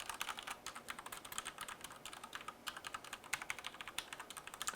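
Typing on a DECK Mantella mechanical keyboard with Cherry MX Black RGB linear switches: a quick, even run of light keystrokes, many to the second, with no hollow ringing from the case.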